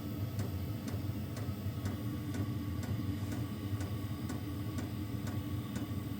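Small diesel air heater running: a steady low hum from its fan and burner, with its fuel dosing pump ticking evenly about twice a second.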